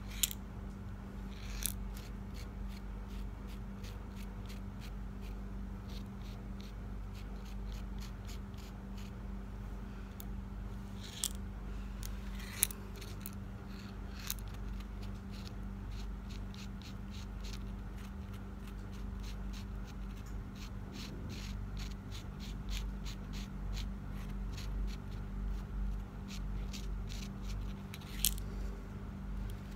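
Paint marker tip tapping and scraping on a hard resin mask: many small dry clicks throughout, with a few louder taps, over a steady low hum.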